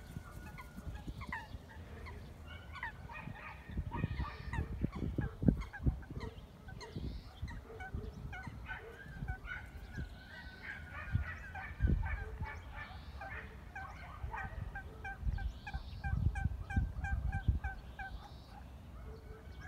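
Domestic fowl calling in quick runs of short repeated notes, several a second, over a low rumble that swells and fades.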